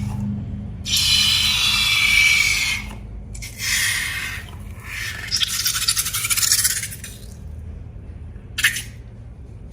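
Balloons and slime being handled: three rubbing, scraping bursts of a second or two each, the first with a faint rubbery squeak, then one short sharp sound near the end.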